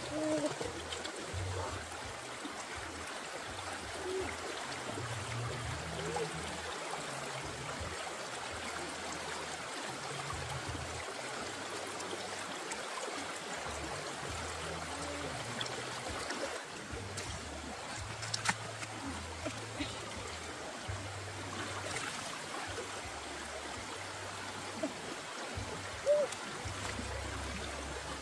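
Shallow rocky stream running steadily over stones, with a few brief sharp clicks in the second half.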